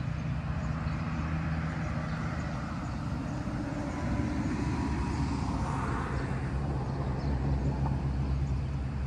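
Steady low outdoor rumble with no distinct event, the kind made by wind on the microphone or road traffic.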